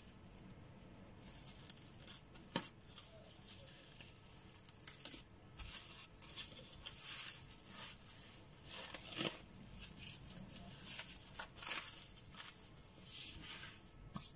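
Plastic cling film crinkling and rustling in irregular bursts as hands fold it tightly around a sandwich.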